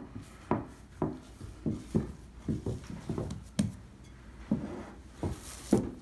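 Risen bread dough being punched down by hand in a stoneware bowl: a series of dull, uneven thumps, about two a second.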